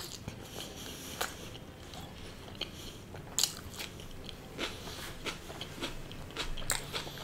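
Close-miked chewing and biting of a soft chicken malai seekh kebab, with a few sharp mouth clicks.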